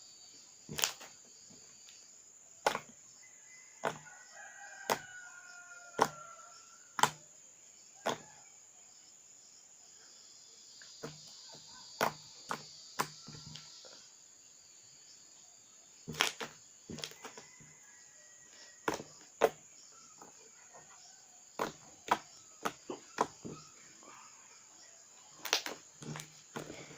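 Slime being kneaded and squeezed by hand, giving sharp wet clicks and pops about once a second, some in quick clusters.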